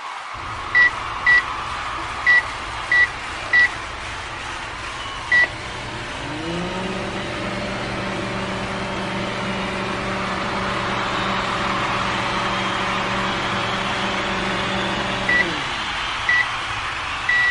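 Microwave oven being set and run: six short keypad beeps, then its hum starts about six seconds in, rising in pitch as it spins up. It runs steadily, winds down with a falling pitch around fifteen seconds, beeps twice more, and begins a longer beep near the end.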